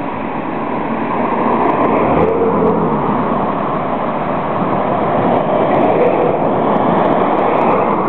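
Strong wind rushing and buffeting the microphone as a steady loud noise that slowly swells.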